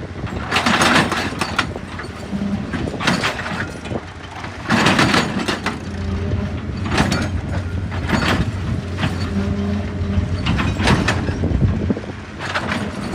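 Heavy earthmoving machine's diesel engine running steadily, with repeated bursts of crunching and scraping as rock and earth are dug and moved, about every one to two seconds.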